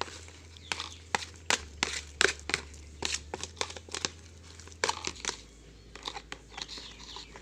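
Homemade slime of foam glue, liquid soap and gom being stirred as it clumps together: irregular sticky clicks and crackles, busier in the first five seconds.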